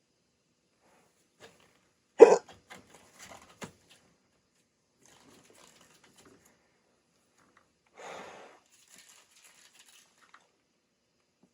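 A man hiccuping once, loud and sudden, about two seconds in: one hiccup of a long bout of hiccups. A few faint clicks follow, and a short soft rush of noise comes about eight seconds in.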